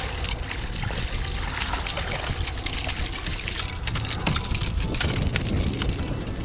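Wind buffeting the microphone and water slapping against a kayak hull, with scattered light ticks as a fishing reel is worked and a hooked bluefish is brought alongside.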